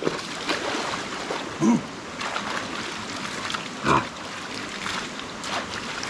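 Water splashing as a person runs through a shallow stream and throws water onto his face, over the steady rush of the stream. Two short vocal grunts come in, near 2 and 4 seconds in.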